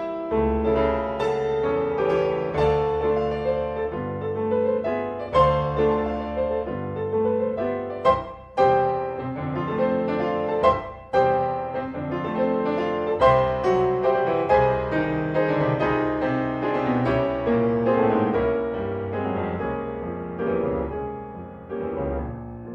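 Solo piano playing a lively passage of loud, accented chords, then growing steadily softer over the last few seconds.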